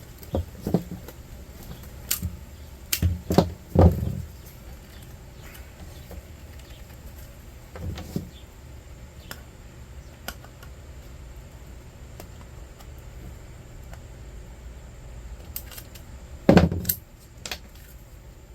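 Intermittent clinks and knocks of scrap metal and wire being handled and tossed into sorting piles, with the loudest knocks about four seconds in and near the end.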